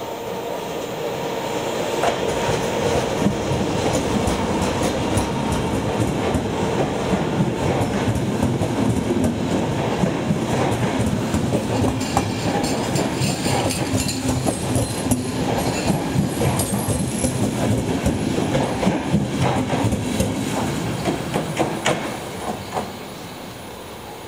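Electric-hauled passenger train running into a station past the platform: the sound swells as the locomotive comes level, then the coaches roll by with a run of wheel clicks over rail joints and a high thin wheel squeal for a few seconds midway, fading as the last coaches pass.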